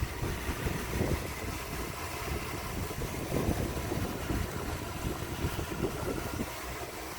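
Irregular scraping, rubbing and knocking of hand work with a screwdriver on a steering column's metal and plastic parts, over a faint steady hum.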